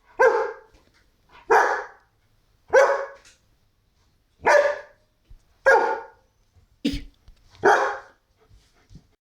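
White German Shepherd barking: six loud single barks, one every second or two.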